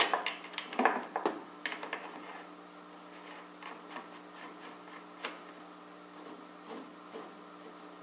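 Light metal clicks and clinks of steel spacer washers and the beam trolley's side plate being handled during assembly. There is a quick run of clicks in the first second or so, then only an occasional faint tick.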